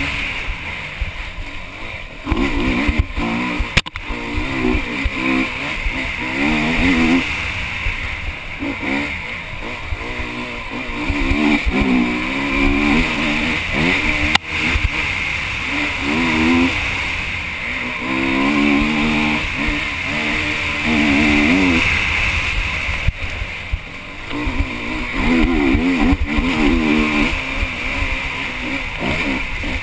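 Honda HM enduro motorcycle engine revving up and falling back over and over as the rider accelerates, shifts and brakes, heard from a helmet camera with a steady rush of wind and rumble. A couple of sharp knocks, about four seconds in and again near the middle, come from the bike hitting bumps.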